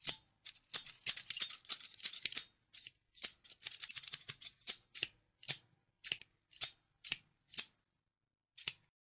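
Scissors snipping, crisp metallic cuts in quick runs at first, then slowing to single snips about every half second, with a last one near the end.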